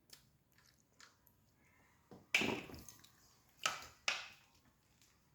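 Clicks and knocks from handling a sensor cable's socket connector and the tide gauge unit: a few light ticks, then three louder knocks at about two, three and a half and four seconds in.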